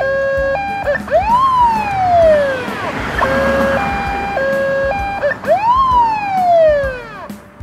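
Police car siren alternating between a two-tone hi-lo pattern and a rising-then-slowly-falling wail, each heard twice.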